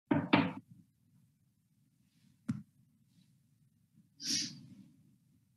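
A woman's breathing: two short breathy sounds right at the start and a hissing breath a little after four seconds, with a single sharp click about two and a half seconds in, over a faint low hum.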